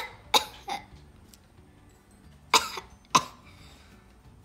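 A person coughing for a puppet, a staged cough: two coughs in the first second, then two more at about two and a half and three seconds in.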